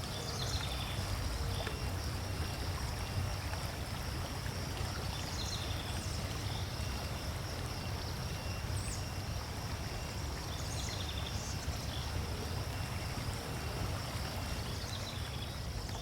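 A river flowing steadily, with a steady high insect hum and scattered short bird chirps over it.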